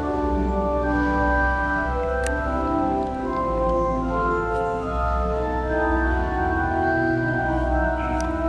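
Church pipe organ playing slow, sustained chords, with deep pedal notes in the bass.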